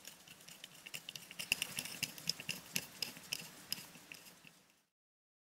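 Faint, irregular small clicks and scrapes of a screwdriver turning the cover screws of a Soviet carbolite light switch. The sound cuts off into silence near the end.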